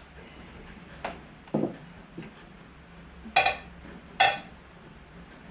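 A serving utensil clinking against dishes: a few light knocks, then two loud ringing clinks about three and a half and four seconds in.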